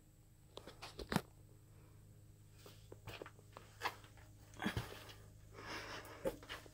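Scattered knocks, scrapes and crunches of a person shifting about in a cramped crawlspace, with one sharper knock about a second in and a stretch of scratchy shuffling near the end.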